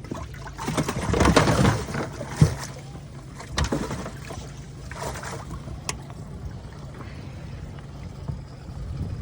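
A boat's motor humming steadily, with a loud rush of noise between about one and two seconds in and a few sharp knocks after it.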